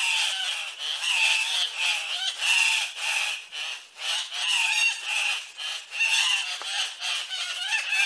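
Male Andean cock-of-the-rock giving display calls: a rapid, continuing series of harsh squawks, about two a second.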